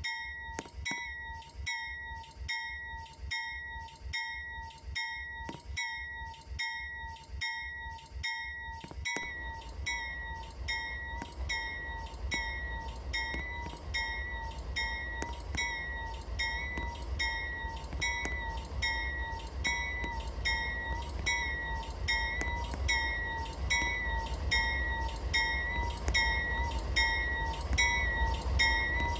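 Railroad grade-crossing warning bell ringing steadily, about two strikes a second. From about a third of the way in, the low rumble of an approaching train comes in under it and slowly grows.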